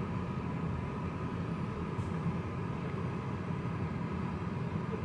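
Steady road and engine noise heard inside a car's cabin while driving, a low even rumble with a faint steady tone above it.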